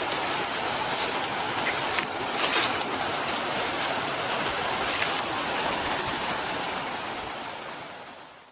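Steady rushing of a small river's flowing water, with a few brief louder splashes, fading out near the end.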